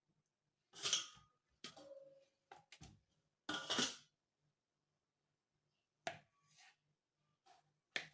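Kitchen utensils being handled: a series of short scrapes, knocks and clinks, one of them leaving a brief ringing tone about two seconds in.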